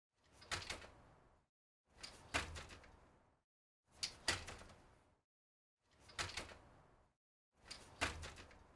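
A bicycle's front wheel dropped and landing on the ground, five times about two seconds apart. Each landing is a sharp double clack followed by a rattle that dies away over about a second.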